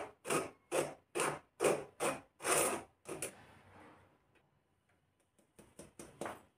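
A spoon scraping besan (gram flour) through a fine steel mesh strainer in rhythmic rasping strokes, about two a second, for the first three seconds. A few light taps near the end as the strainer is handled over the bowl.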